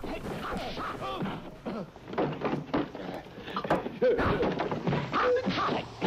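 Television soundtrack of a film scene: voices with knocks and thuds, the heaviest thud about four seconds in.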